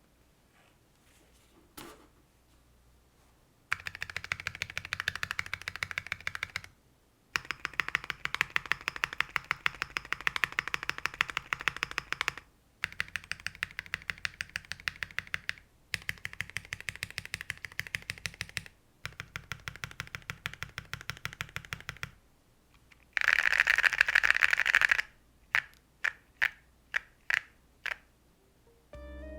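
Typing on a mechanical keyboard fitted with ceramic keycaps: several runs of quick keystrokes with short pauses between them, then a louder, faster flurry near the end, followed by a few single, spaced key presses.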